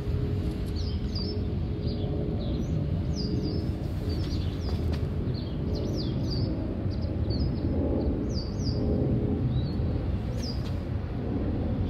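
Steady low rumble of a jet airliner climbing out after takeoff, with small birds giving many short, high, falling chirps throughout.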